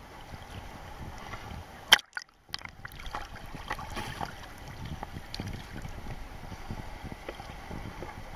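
Water sloshing and splashing against a waterproof camera held at the surface while swimming: an irregular wash of small splashes. About two seconds in comes a sharp knock, then the sound drops out for half a second before the splashing resumes.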